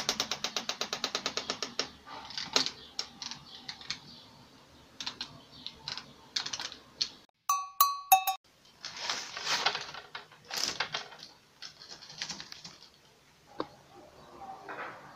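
Roller blind's bead chain and clutch mechanism clicking rapidly as the blind is moved, then scattered knocks and rustling of the blind. A short chiming jingle comes about halfway.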